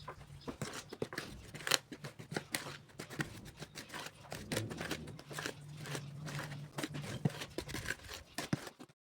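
Irregular clicking, tapping and scraping of kitchen utensils at work, many small sharp sounds in quick succession, ending abruptly.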